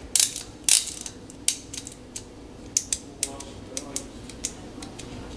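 SRAM bicycle trigger shifter, freshly reassembled with no cable fitted, worked by hand through its ratchet: about a dozen sharp clicks at uneven spacing. It is a test shift to check that the rebuilt shifter indexes properly.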